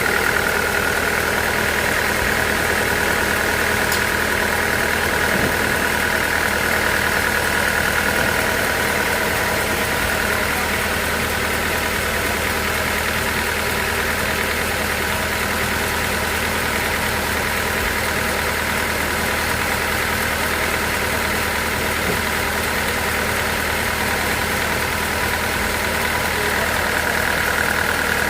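Sawmill machinery running steadily: a constant motor hum with a high whine over it. The whine eases a little in the middle and strengthens again near the end.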